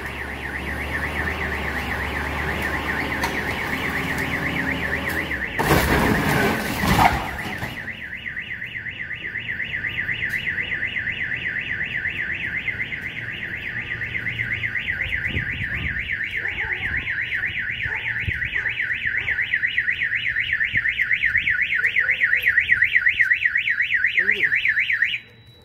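Car alarm siren warbling rapidly up and down in pitch, continuing until it cuts off suddenly near the end. A loud burst of noise is heard about six seconds in.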